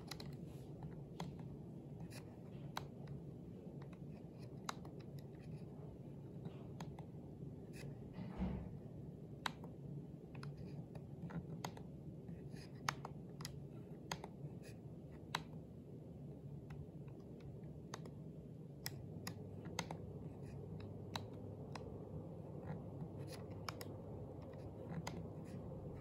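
Button presses on a Mitsubishi Electric wired air-conditioner remote controller: a series of short, irregularly spaced clicks as the menu is stepped through.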